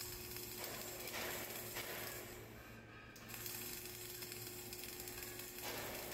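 Flux-cored arc welding on a vertical butt joint: the arc crackles steadily, dropping off briefly about two and a half seconds in.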